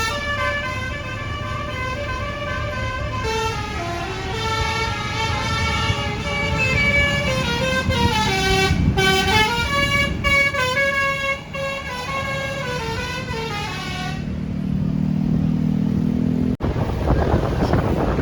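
A tour bus's Basuri telolet horn plays a tune: loud, sustained horn notes step up and down in pitch for about fourteen seconds. A lower steady tone follows, then cuts off sharply, and a rush of noise comes after.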